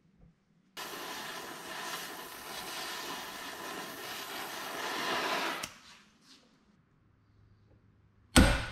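Gas torch flame hissing steadily for about five seconds, starting and stopping abruptly. Near the end comes a single sharp hammer blow on a punch set in a cast-iron water pump held in a vise.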